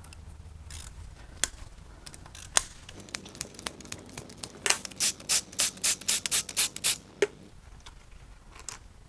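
Hand ratchet clicking in quick strokes, about four a second, as the rocker arm bolts on a GM 5.3L V8 cylinder head are worked loose, with a few scattered metal clicks before.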